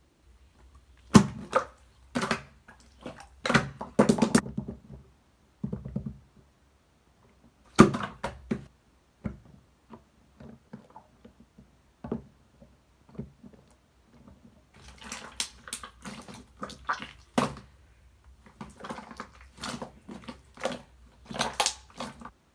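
Clear slime being squished and pressed by hand, making irregular clusters of sharp wet clicks and pops with short quiet gaps between them.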